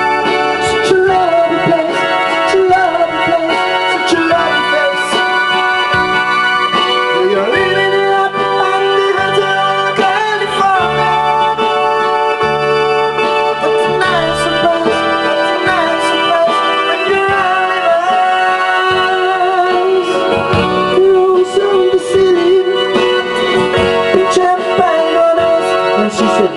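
Electronic keyboard music: sustained organ-style chords under a melody line that slides and bends in pitch.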